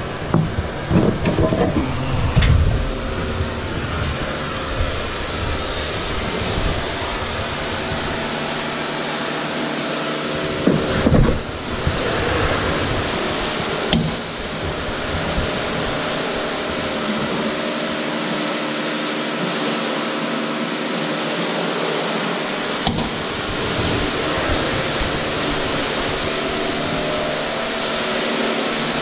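Steady hum and rushing hiss of hot-water washing equipment running, with a few knocks and low thumps in the first few seconds and again about eleven seconds in.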